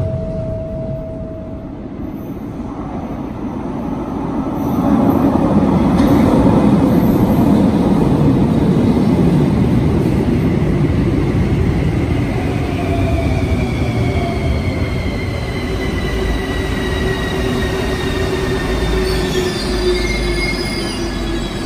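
Bucharest Metro Bombardier Movia 346 train pulling into an underground station. A rumble grows loud about five seconds in, then several whines fall steadily in pitch as the train brakes to a stop near the end.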